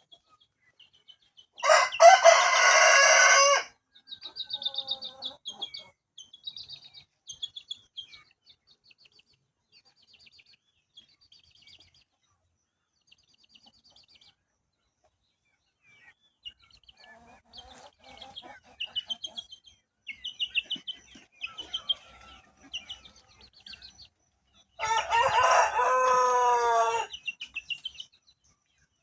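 Rooster crowing twice, each crow about two seconds long, the first near the start and the second near the end. Birds chirp faintly in between.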